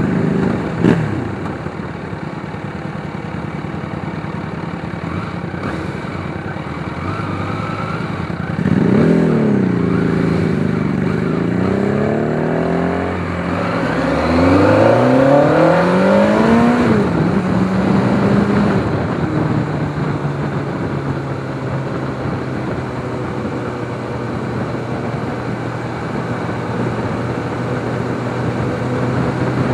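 MV Agusta F4 750 Oro's inline-four engine heard from the saddle while riding: a steady cruising note, then from about nine seconds in it revs up and drops back several times in rising and falling sweeps as the bike accelerates through the gears, before settling back to a steady cruise near twenty seconds in. A sharp knock sounds about a second in.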